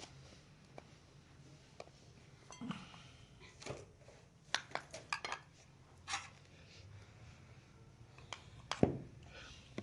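Scattered light clinks and knocks of dishes being handled, the loudest near the end.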